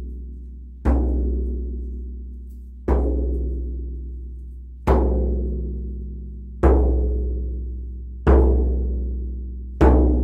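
Hand-held frame drum with a laced hide head struck slowly with a padded beater: six single beats about two seconds apart, coming a little closer near the end. Each is a deep boom that rings on and fades before the next.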